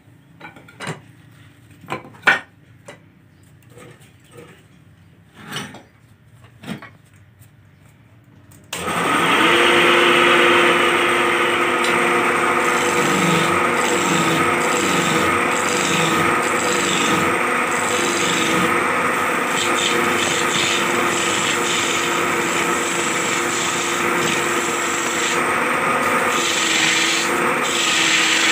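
A few scattered knocks and taps, then, about nine seconds in, a wood lathe starts and runs steadily while a hand-held chisel cuts the spinning wooden blank: a continuous loud scraping rasp over a steady drone.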